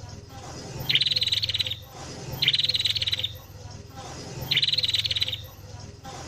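A songbird's rapid, evenly pulsed trill, each phrase a little under a second long, repeated three times at intervals of about one and a half to two seconds, with a low hum under each phrase.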